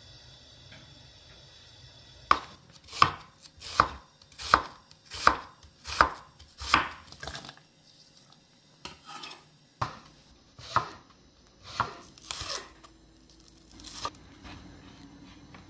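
Kitchen knife chopping onion and green onion on a cutting board: a steady run of strokes a little faster than one a second, then slower, more scattered strokes.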